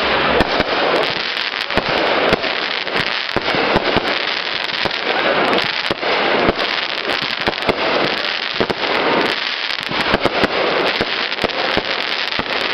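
Fireworks going off densely: many bangs and crackles overlapping without a pause.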